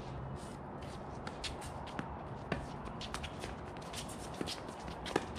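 Pickleball rally: sharp pops of paddles striking the plastic ball, the loudest about halfway through and near the end, among lighter scuffs and shuffling of shoes on the hard court.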